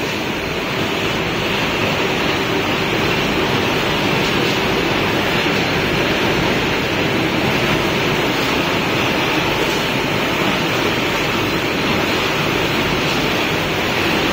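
Wire mesh machine running: a steady, loud noise with a faint hum underneath.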